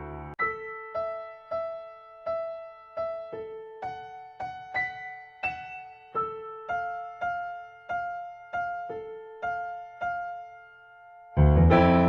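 Background music on a piano-like keyboard: single notes struck one at a time at an even pace, about two a second, each fading away. After a short pause near the end, a loud full chord comes in.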